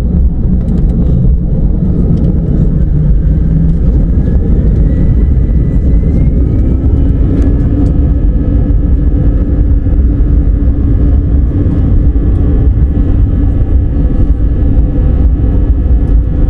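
Airbus A320-family airliner's twin turbofan engines heard from the cabin over the wing: a heavy steady rumble with a whine that rises from about three seconds in to about halfway, then holds, as the engines spool up to higher thrust.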